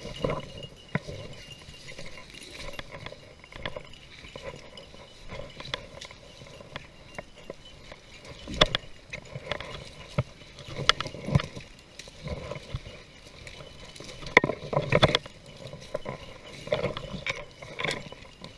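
Someone pushing through thick dry brush on foot: irregular rustling and scraping of twigs and branches against clothing and a head-mounted camera, with scattered snaps and knocks.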